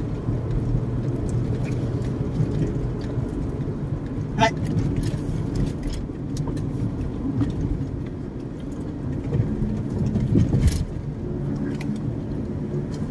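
Steady low rumble of road and engine noise inside a moving car's cabin, with a short squeak about four and a half seconds in and a sharp knock near the end.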